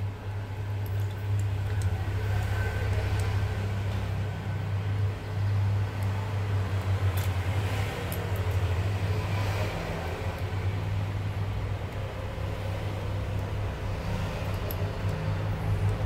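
A steady low rumble with a few faint clicks over it.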